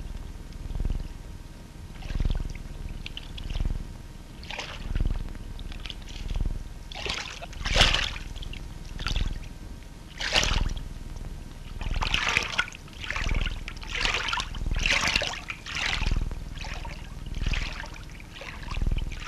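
Water splashing and sloshing in a slow, steady rhythm, about once every one and a half seconds.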